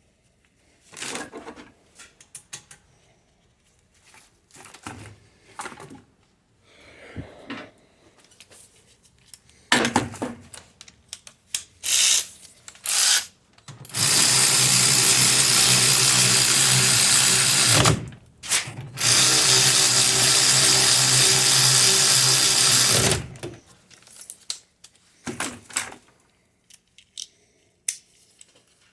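Handheld electric power tool of the drill or driver type, run while reassembling a car's rear disc brake. It gives two short blips, then runs steadily twice for about four seconds each with a short pause between. Before that come scattered clinks and knocks of metal parts and tools being handled.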